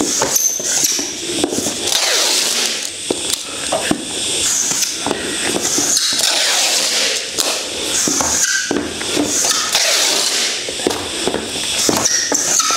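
Wooden block rubbed along aluminium foil tape laid over galvanised steel floor sheets, pressing the tape down onto the seam. It makes a rasping hiss in repeated strokes that swell and fade about once a second, with a few small clicks.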